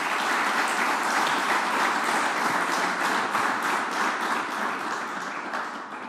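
Audience applauding, many hands clapping at once, dying away near the end.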